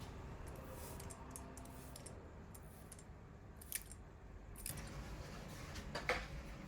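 Faint household handling sounds over a low steady hum: a sharp click about four seconds in and another near the end.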